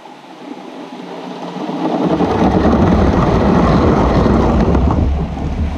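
A LEGO-brick TEE passenger train running past close by at speed, its wheels rumbling and clattering over the plastic track. The sound builds over about two seconds, adds a deep rumble as the train reaches the camera, stays loud, then begins to fade near the end.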